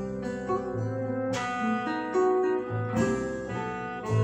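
Acoustic guitar music, picked notes ringing out over low bass notes, played back through a pair of standmount hi-fi speakers driven by Odyssey Kismet mono block power amplifiers.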